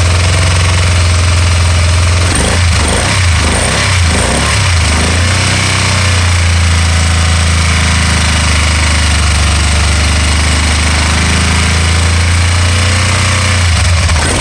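Can-Am Spyder RT-L 990 V-twin engine running with a misfire, its beat uneven and stuttering. The running wavers between about two and five seconds in and again near the end.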